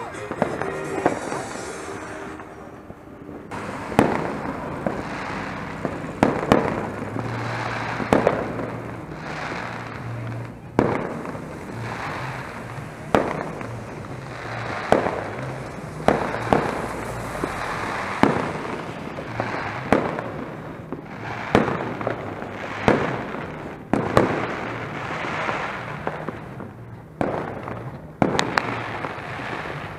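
New Year's Eve fireworks and firecrackers going off all around, starting about four seconds in: a sharp bang every second or two, each followed by a rolling echo.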